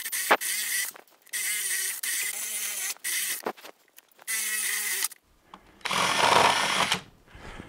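Power drill boring a 25 mm hole up into a wooden floor joist. It runs in four bursts of a second or two with short stops between. About six seconds in comes a harsher, noisier burst of about a second.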